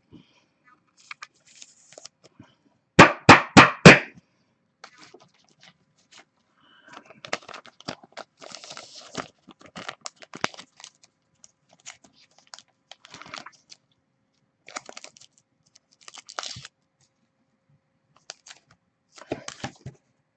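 Clear plastic card sleeves rustling and crinkling in fits as a trading card is worked into them by hand, with four quick, loud knocks in a row about three seconds in.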